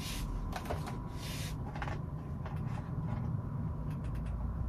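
Hands gathering small items: a few short rustles and light clicks over a low steady hum.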